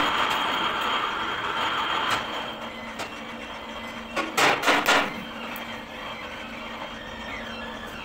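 A few sharp metal knocks about four and a half seconds in as parts of a stationary single-cylinder diesel engine are handled, over a steady workshop din that is louder in the first two seconds.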